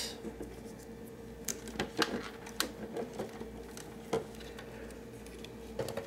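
Scattered light clicks and taps of hands handling the refrigerator's plastic dispenser housing and the heater wires, about five in all, over a faint steady hum.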